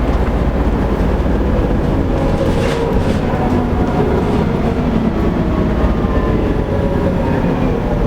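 Volvo B7TL double-decker bus's seven-litre six-cylinder diesel and driveline running steadily under way, a continuous low rumble whose pitch shifts gently, with the ticking noises this bus is known for.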